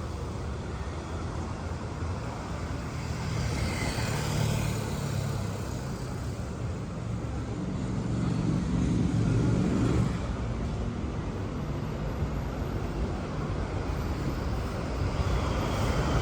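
City street traffic: the steady sound of car engines and tyres going by, with one vehicle passing loudest about eight to ten seconds in.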